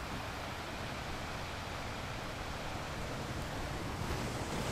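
Steady rush of wind and sea as a ship's bow pitches through rough water and throws spray, with a low rumble underneath, growing a little louder near the end.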